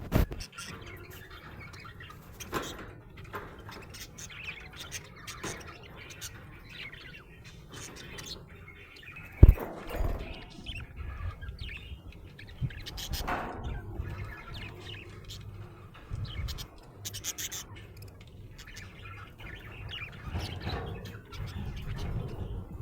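Budgerigar chirping and chattering in many short, scattered calls, with one sharp knock about nine seconds in.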